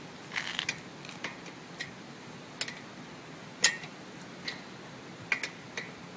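A wrench loosening the axle nuts of a BMX wheel: irregular sharp metallic clicks and clinks, with a few short clusters and one louder clink about three and a half seconds in.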